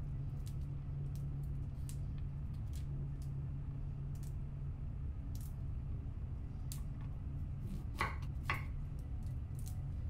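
Fresh cauliflower florets being snapped and torn off the stem by hand: a scatter of crisp little cracks, with two louder snaps about eight seconds in, over a steady low hum.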